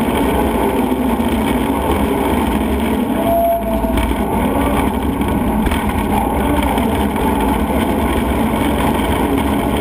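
TANA Shark 440DT mobile waste shredder running steadily under load as it shreds scrap tires: a continuous diesel-engine and shredding-rotor machine noise, with a brief squeal about three and a half seconds in.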